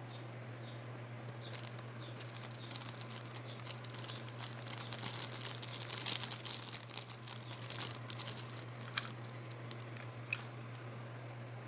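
Plastic packaging crinkling and rustling as it is handled and unwrapped, with two sharp clicks later on, over a steady low hum.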